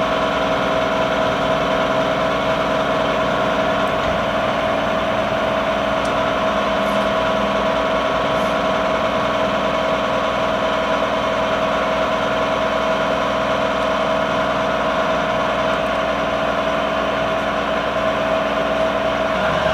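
Monarch EE toolroom engine lathe running at a steady speed under power: an even mechanical hum with a steady whine from the spindle and its variable-speed drive.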